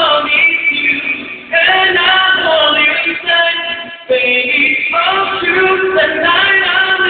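Man singing a slow ballad into a handheld microphone over backing music, in phrases with short breaks about a second and a half in and again around four seconds.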